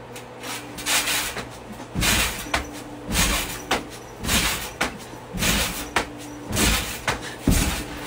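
Person bouncing and flipping on a trampoline: a thud of the mat and springs with each landing, about once a second, over a steady low hum.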